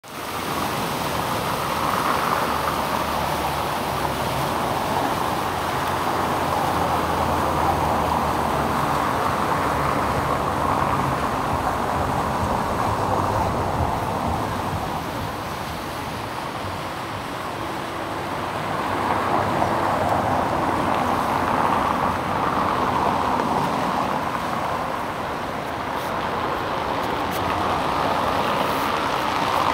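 Road traffic on a city bridge: a steady rush of passing vehicles that swells and eases every few seconds.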